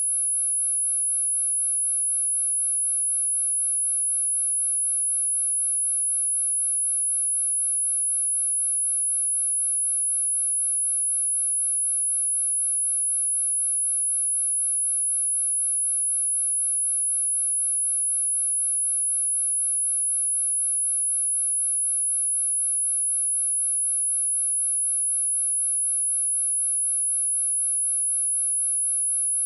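A single steady, high-pitched sine-wave test tone at 10576 Hz, held at a constant level without a break.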